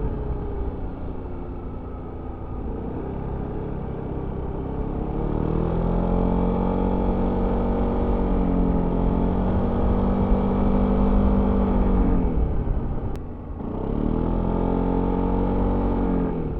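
Yamaha XMAX 300 scooter's single-cylinder engine with its stock exhaust, heard on board while riding. The engine note drops off the throttle, builds again and holds steady, drops away about thirteen seconds in, then picks up once more.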